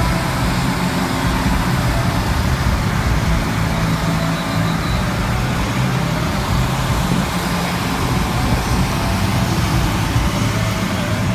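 A steady low mechanical hum under constant outdoor noise.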